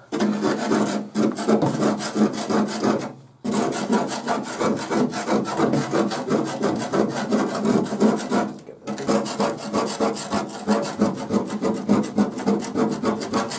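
A thin metal hand tool scraping loose rust and blistered paint off a rusty sheet-steel mower bonnet in rapid short strokes, stopping briefly twice: about 3 seconds in and about 8.5 seconds in.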